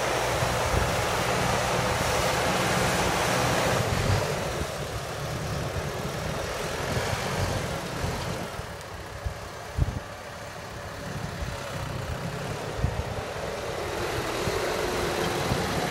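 Hattat tractor's diesel engine running steadily under load while pulling a moldboard plow through the soil. It drops back a little after about four seconds and grows louder again near the end, with a single sharp knock near the middle.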